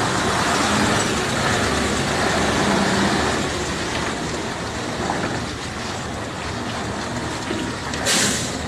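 Tanker truck rolling past, its engine and tyres making a steady, loud noise, with a short burst of hiss near the end.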